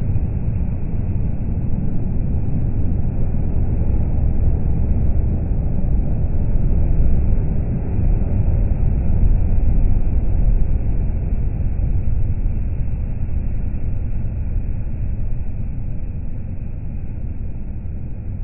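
Slowed-down pass-by of a Scania articulated lorry on a motorway: a deep, noisy rumble of engine and tyres that swells to its loudest around the middle, as the truck goes by, and fades toward the end.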